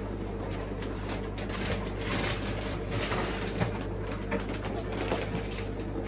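Steady low hum of running pond equipment, with faint rustling and small clicks scattered throughout, as of a plastic fish bag being handled.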